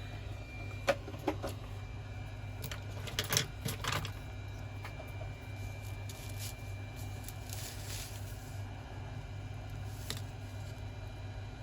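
Small repair tools clicking and tapping against a phone during disassembly: two sharp clicks about a second in and a quick cluster around three to four seconds, over a steady low hum.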